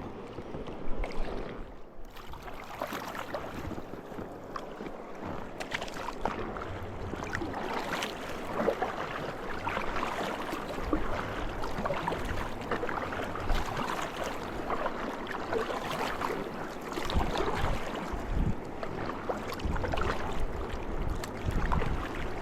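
River water rushing and splashing around a raft, growing a little louder as it goes, with low wind rumble on the microphone and a few small knocks.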